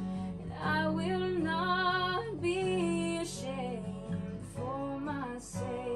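Background music: a woman singing a slow melody over acoustic guitar.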